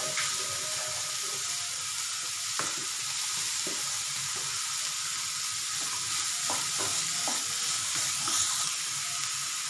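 Diced onion, carrot and green capsicum sizzling steadily in butter and oil in a frying pan over high heat, stirred with a wooden spatula that gives a few light scrapes against the pan.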